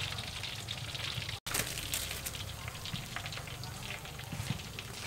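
Battered shrimp deep-frying in hot oil in a wok: a steady crackling sizzle. It cuts out for an instant about a second and a half in, then resumes.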